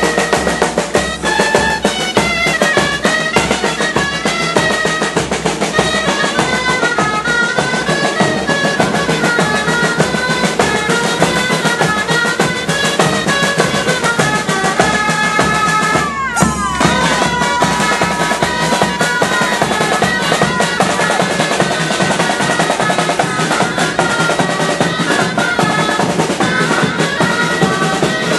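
Catalan gralles (double-reed shawms) playing a lively tune over drumming, as street music for dancing giants. The music breaks off abruptly about sixteen seconds in and carries on straight after.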